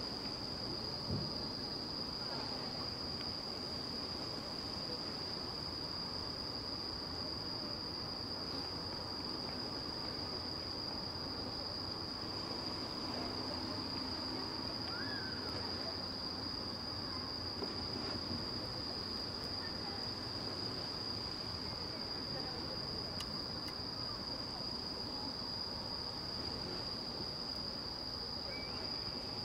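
Night insects singing in one steady, unbroken high-pitched tone, over a faint, even murmur of distant background noise.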